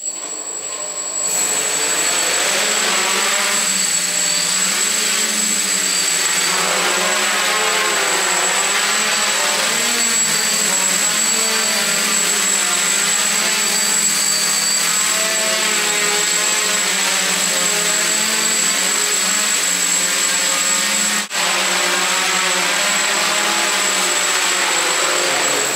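DJI Flamewheel F450 quadcopter's four electric motors and propellers spinning up and hovering: a steady buzzing whine whose pitch wavers as the motors keep adjusting, with a thin high-pitched tone above it. It comes up to full level about a second in.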